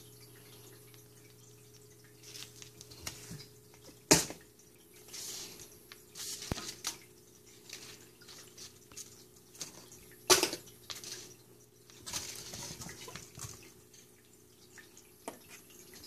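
Kitten batting and chasing a small toy across a hardwood floor: scattered taps, clicks and short crackly rustles, with two sharp knocks about four and ten seconds in.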